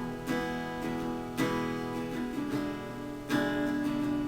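Acoustic guitar strummed chords, an instrumental pause between the sung lines of a slow song, with a fresh strum about every second.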